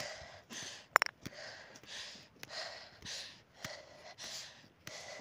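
A person breathing hard close to the microphone, quick rhythmic breaths about two a second, with a sharp click about a second in.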